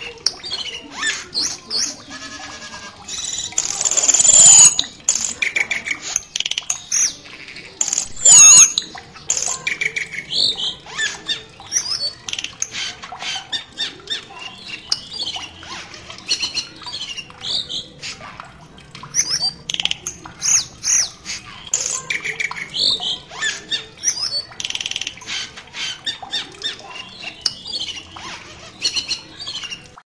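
Asian glossy starling calling: a rapid, continuous run of short chirps, whistles and squawks, with two louder, longer calls about four and eight seconds in.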